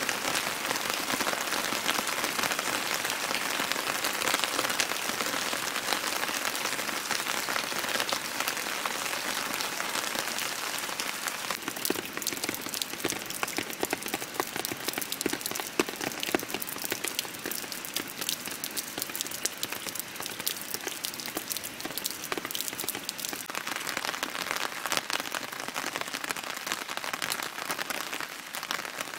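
Steady rain falling on a pond, wet ground and a wooden deck: an even hiss with many sharp single drop hits, which grow denser and crisper about a third of the way in.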